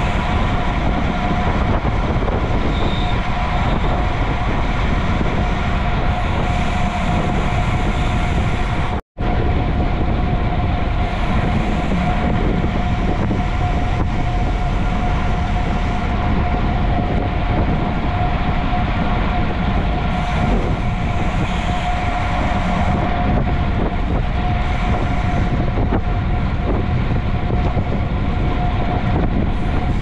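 Steady rush of wind and road noise from a bicycle being ridden at speed, with a constant hum running through it. The sound cuts out for a split second about nine seconds in.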